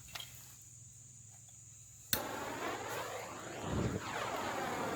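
Gasoline poured on charcoal in a homemade furnace catching light: a sharp click about two seconds in, then a steady rushing of flame with a low whump near the end, over crickets chirping.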